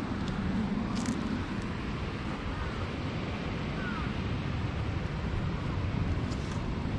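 Steady wind noise on a small action-camera microphone: a constant low rumble and hiss.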